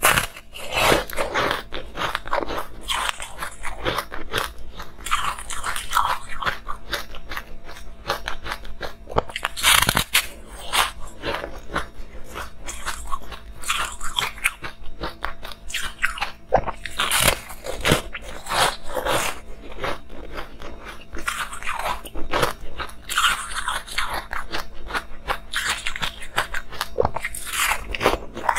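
A person biting and chewing a porous, colored block of frozen ice close to a clip-on microphone: a continuous run of crisp, crackly crunches, with one louder crunch about ten seconds in.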